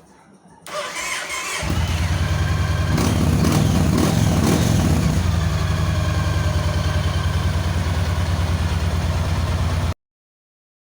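Yamaha XV1900 Raider's big air-cooled V-twin cranked on the starter and catching, revved briefly a couple of seconds in, then idling steadily until the sound cuts off abruptly near the end. The starter now turns the engine over, the sign of a working starter relay rather than the lone click of the faulty one.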